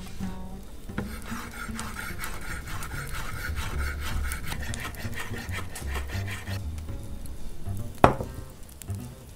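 Chef's knife chopping fresh tarragon on a wooden cutting board in a quick run of strokes, over background music. Near the end comes a single sharp knock.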